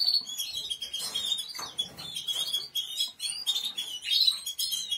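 Many caged small songbirds, canaries among them, chirping and twittering together in a busy, continuous chorus of quick high notes.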